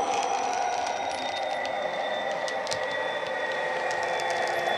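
Hornby Class 66 model locomotive's TXS sound decoder playing a Class 66 diesel engine running, through the model's small speaker, as the model approaches on the track. A steady engine hum with a thin high whine, and scattered light clicks.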